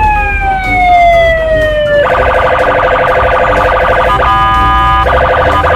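Police patrol car siren. A long wail falls slowly in pitch, then about two seconds in it switches to a very fast warble, broken briefly by a steady tone near the end, over the low rumble of road traffic.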